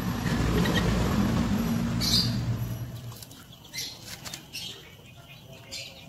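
A low rumble that fades away about halfway through, then short rustling rips as feathers are plucked by hand from scalded chickens.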